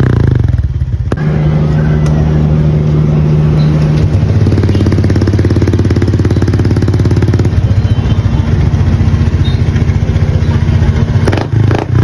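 Honda Click scooter's single-cylinder four-stroke engine idling steadily through an aftermarket Apido V4 exhaust pipe. It is a fast, even exhaust beat, and it settles to a slightly lower pitch about four seconds in.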